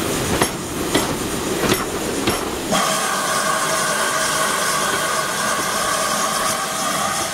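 Railway coach wheels clacking over rail joints as the coaches roll past, a sharp knock every half second or so. A little under three seconds in, a steady, loud steam hiss from a GWR 2-8-0 tank locomotive starts suddenly and takes over.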